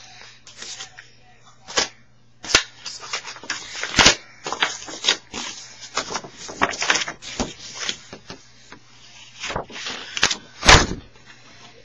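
Paper envelope being torn open and its paper contents handled: irregular sharp rips and crinkling rustles with short pauses, the loudest near the end, over a faint steady low hum.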